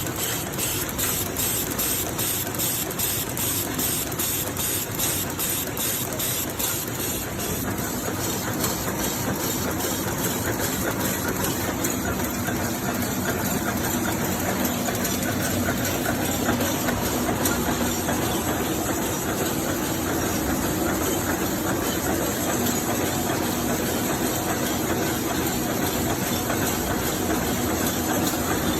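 Automatic single-spoon packing machine running steadily, a mechanical hum with hiss. A quick regular ticking runs with it for the first several seconds, then fades into the steady noise.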